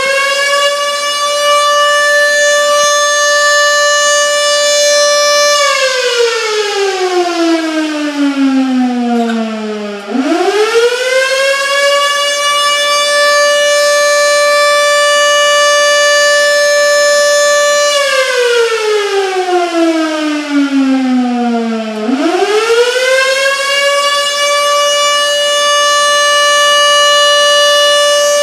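Outdoor warning siren sounding a tornado-warning wail. It rises to a steady pitch, holds for about six seconds, then falls away over about four seconds. It does this twice and rises a third time.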